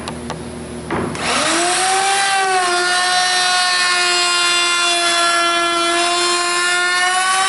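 A couple of light clicks, then a handheld D-handle router is switched on about a second in, its motor whining quickly up to full speed. It then runs at a steady high whine as the bit cuts a profile along the edge of a wooden board.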